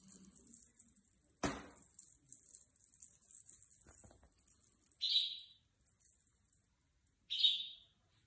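Ragdoll kitten playing with a feather wand toy on a cushioned cat bed: one dull thump about a second and a half in, and two short high sounds later on, one about five seconds in and one near the end.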